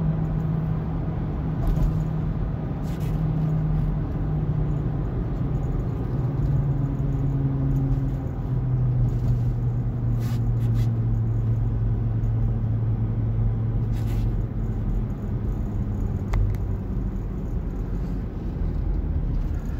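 Car cabin interior while driving at expressway speed: a steady low drone of engine and tyre noise that drops in pitch about eight seconds in, with a few brief knocks.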